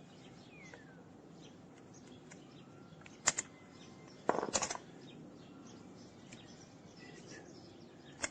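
Quiet hand-tool work on metal: a sharp metallic click about three seconds in, then a short clicking rattle about a second later, over faint background chirping.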